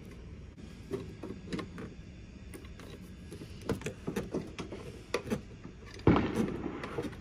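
Light, irregular clicks and knocks of a metal bolt and washer being handled and fitted into a scooter luggage-rack handle, with a louder clunk about six seconds in.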